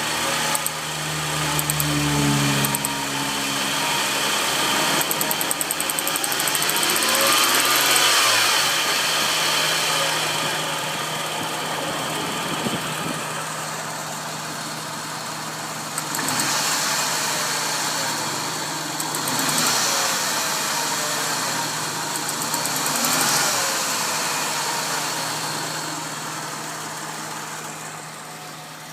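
Supercharged 3.3-litre V6 (VG33ER) of a 2002 Nissan Xterra running, its speed rising and falling several times, with a strange noise under the hood that the owner suspects is the Eaton M62 supercharger. Short runs of rapid ticking come in about five seconds in.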